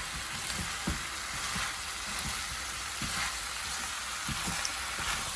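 Chicken Manchurian sizzling in a hot pan with a steady hiss, with light knocks of a utensil stirring it now and then.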